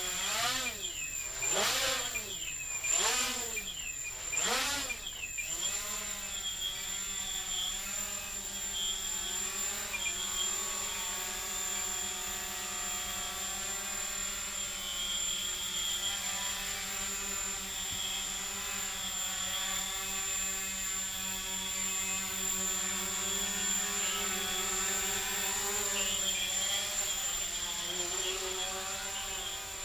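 Micro quadcopter's brushless motors and carbon fiber propellers buzzing in flight. For the first five seconds the pitch swoops up and down several times as the throttle is worked, then it settles into a steadier hover that wavers slightly in pitch.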